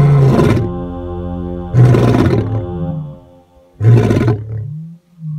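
Male Kalahari black-maned lion roaring: a series of deep, loud roars about two seconds apart, the last one shorter and softer. Background music plays under the first roars and fades out about three seconds in.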